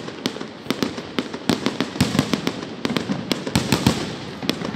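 Aerial fireworks display: shells bursting in the sky, many sharp bangs in quick, uneven succession.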